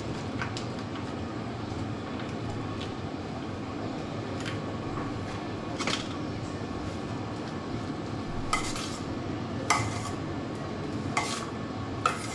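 Spoon stirring sandwich filling in a bowl, with several sharp clinks of the utensil against the bowl, most of them in the second half.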